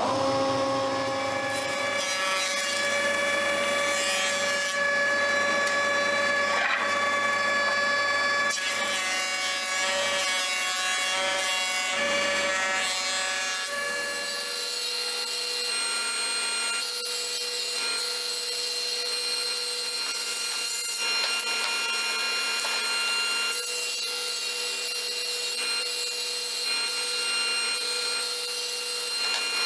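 Jointer-planer running steadily with a motor whine made of several fixed tones. About halfway through it gives way abruptly to a table saw running steadily with a different whine.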